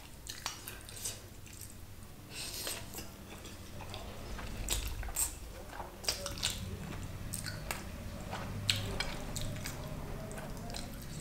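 A person eating spicy black bean noodles close to the microphone: wet chewing and slurping with many short, scattered smacks and clicks of the mouth.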